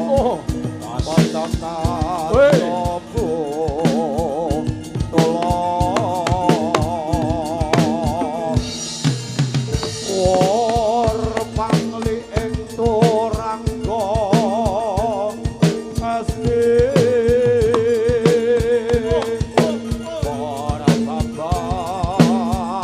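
Javanese jathilan accompaniment music: a vocal melody with heavy vibrato over steady held tones, driven by dense drum and percussion strikes.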